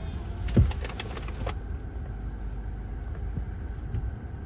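Steady low road rumble of a car on the move, with one loud thump about half a second in, followed by a few quick clicks.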